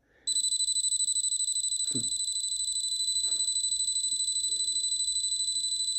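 Electronic engine-warning alarm that comes on a moment in and keeps sounding as a high, steady tone with a fast pulsing. It is the low fuel pressure warning, set off by the fuel pressure dropping once the fuel pumps are switched off.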